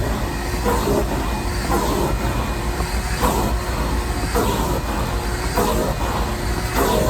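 Shop vac running steadily, its nozzle worked back and forth with a rushing stroke about once a second.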